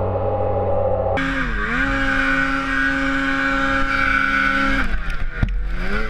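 Ski-Doo Summit 850 two-stroke snowmobile engine held at high revs as the sled pushes through deep powder. The engine note drops near the end, and there is a single thump.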